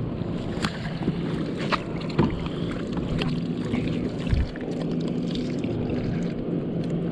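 Water lapping and splashing against a kayak's hull, with a few sharp knocks or splashes and a steady low hum underneath.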